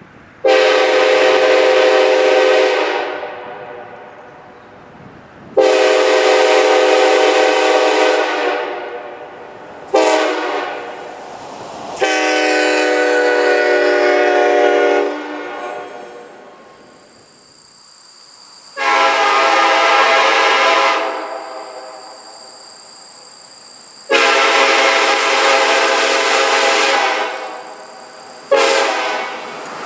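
Nathan Airchime K5-series five-chime locomotive air horn, truck-mounted, blowing the long-long-short-long grade-crossing pattern. A second set of blasts begins about two-thirds in with a lower, fuller chord, the K5HLA variant with the low #1L bell in place of #5. A steady high whine runs under that second set.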